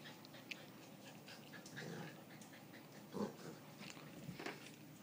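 Pet dog making three short vocal sounds, the loudest about three seconds in, with faint clicks and patters between.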